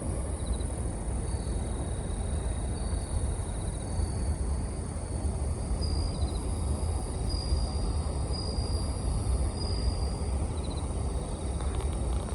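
Japanese bell crickets (suzumushi) singing faint, high, ringing notes: short trills every few seconds and longer held tones. Under them runs a steady low rumble, louder than the insects.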